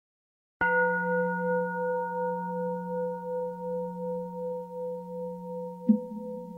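A singing bowl struck once, ringing with several steady overtones that waver in loudness as they slowly fade, then struck again sharply near the end.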